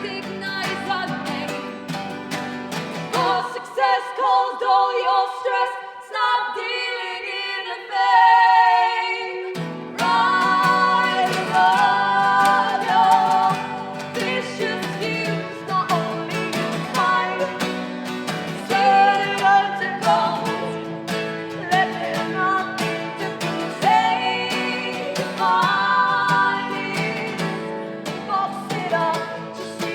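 Live acoustic song: women's voices singing in harmony over strummed acoustic guitars. About three seconds in the guitars drop out and the voices carry on nearly alone for several seconds, until the guitars come back in around ten seconds in.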